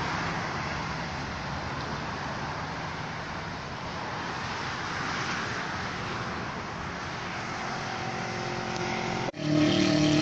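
Steady rushing road and traffic noise, even and unbroken, that cuts off sharply about nine seconds in. It gives way to a steady hum with several held tones.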